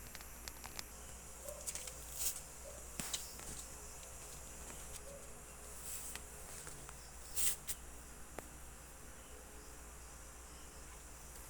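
Night insects chirring steadily, with a few brief rustling scuffs, the loudest about two, three and seven and a half seconds in.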